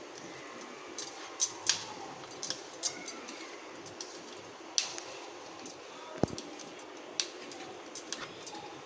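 Kitchen utensils clinking and tapping in irregular light strikes, like a spoon against a bowl while food is mixed. A short falling squeak comes about six seconds in.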